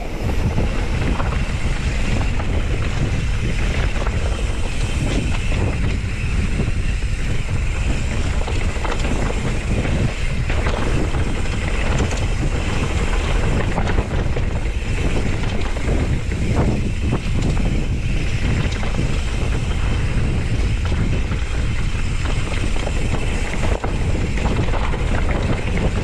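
Mountain bike rolling fast down a dirt singletrack: steady wind buffeting on the microphone over the low rumble of the tyres, with occasional knocks and rattles from the bike over bumps.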